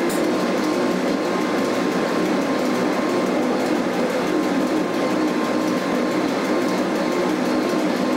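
Electric cogwheel train running along its rack railway, heard from inside the cab: a steady rumble of wheels and drive with a faint steady whine.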